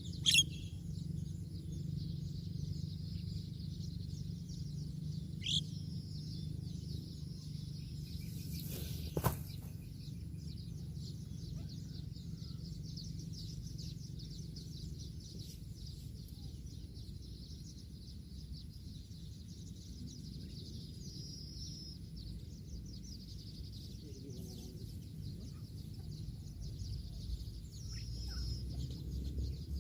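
Birds chirping over a steady, dense high chirring, with a few sharp calls standing out: a loud one at the very start, then others around five seconds in, past twenty seconds and near the end. A single knock comes about nine seconds in.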